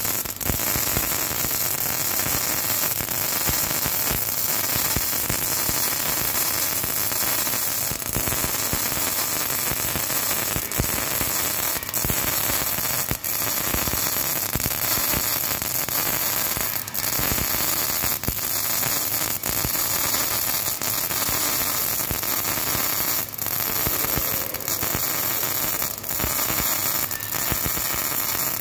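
MIG welding arc running on solid wire, a steady crackling hiss with frequent sharp pops, as a horizontal bead is laid on steel.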